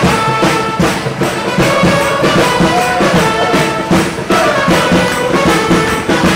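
Live street band playing upbeat folk-pop with brass horns over a steady beat.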